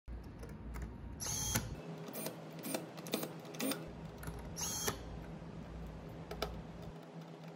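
Small screws being driven into a terminal block: two brief whirs of a cordless electric screwdriver's motor, about a second in and near the middle, with a run of light clicks between them over a steady low hum.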